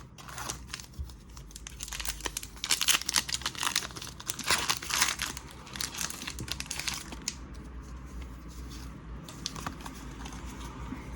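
Foil wrapper of a Pokémon TCG booster pack crinkling and tearing as it is opened: a dense crackle, loudest in the middle few seconds, easing to lighter rustling near the end.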